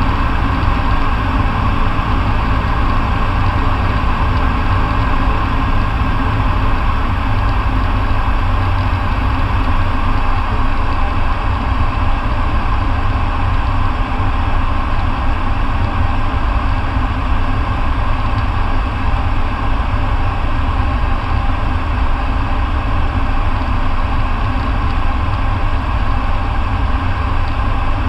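Light aircraft's engine and propeller drone, with airflow noise, heard inside the cockpit: a loud, steady, deep drone. A low hum within it fades out about seven seconds in.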